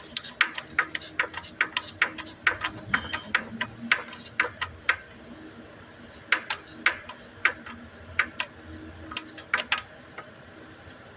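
Ratchet wrench with a 32 mm socket clicking in short, irregular runs of sharp clicks while the timing chain tensioner is tightened on a 2.4 L engine. The clicks are densest in the first half and thin out after about five seconds.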